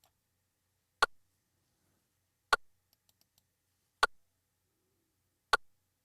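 Short, sharp percussive hits repeating in strict time about every one and a half seconds, played back from music-production software while an audio track records.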